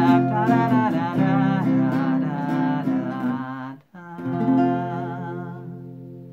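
Acoustic guitar strummed under a man's wordless "da da da" singing. Near four seconds in the music stops for a moment, then a final guitar chord rings out and slowly fades.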